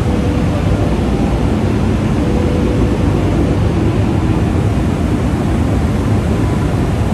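Sugar mill processing machinery running: a loud, steady mechanical noise, mostly deep rumble, with a faint steady hum through it.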